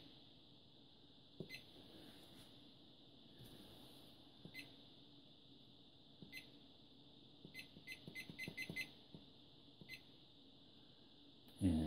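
Allen-Bradley PanelView 1000E touchscreen beeping once for each press of its on-screen arrow key while the clock is set: short high beeps, single ones a few seconds apart, then a quick run of about six about eight seconds in. A faint steady high hiss sits underneath, and a man's voice starts up right at the end.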